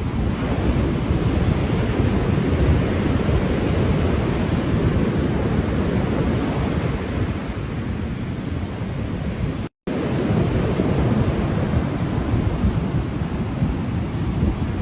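Ocean surf: a steady, deep rush of breaking waves. It cuts out to silence for a split second about ten seconds in.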